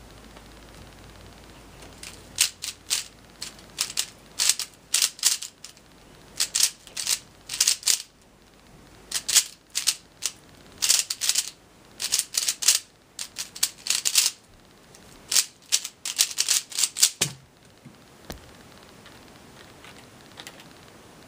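Zhanchi Silk 3x3 speedcube being turned fast during a timed solve: plastic layers clicking and clacking in quick runs of turns separated by short pauses. The clicking stops about three quarters of the way through, when the solve is done.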